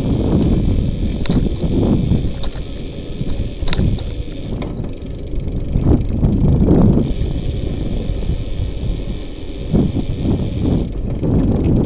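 Wind buffeting a bicycle-mounted camera's microphone while riding on asphalt, with tyre rumble underneath, swelling and easing unevenly. A couple of light clicks from bumps.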